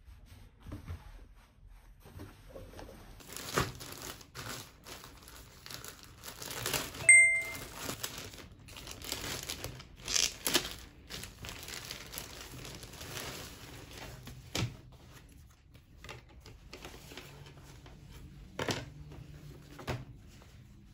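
Plastic packaging crinkling and rustling as a garment is unwrapped by hand, with sharp crackles and a brief high squeak about seven seconds in.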